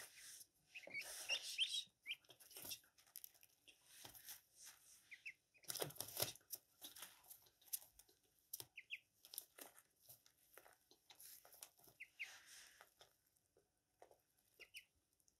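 Ducklings pecking at feed scattered on newspaper: faint, irregular ticking and rustling of bills on paper and grain, the busiest flurry about six seconds in. A few short, high duckling peeps come through.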